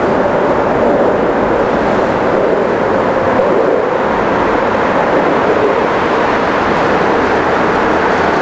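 Steady, loud drone of traffic on the elevated Brooklyn-Queens Expressway overhead.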